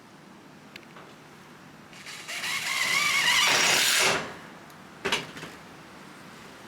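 Power drill driving a screw into wood: the motor runs loudly for about two seconds with a wavering pitch, then stops sharply. A single short knock follows about five seconds in.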